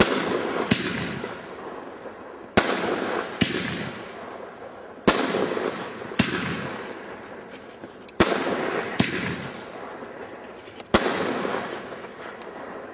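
Weco 'Cogan' fireworks battery (cake) firing its shots: loud sharp bangs, mostly in pairs less than a second apart, coming every two and a half to three seconds. Each pair trails off in a fading hiss as the gold stars burn out.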